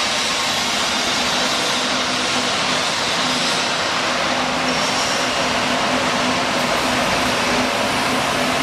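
Steel bar cutting machine running without a load, a steady motor hum with a constant hiss and no cutting strokes.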